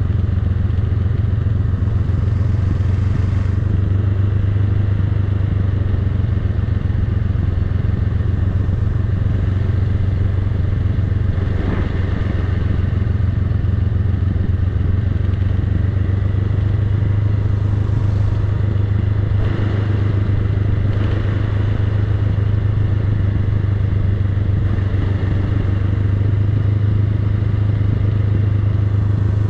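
Honda Rebel 500's parallel-twin engine running steadily as the motorcycle is ridden slowly downhill.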